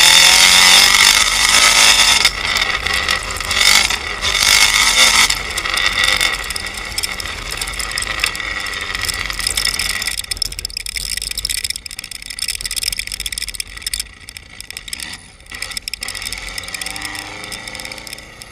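Subaru WRX rallycross car's turbocharged flat-four engine revving hard on loose dirt, with a dense gravel-and-tyre hiss. It is loud for about the first five seconds, then falls away, and the car is much quieter in the second half.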